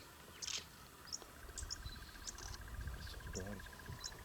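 Bush ambience of insects and birds: a rapid, even trill starts about a second in and carries on, with scattered short high chirps over a low rumble.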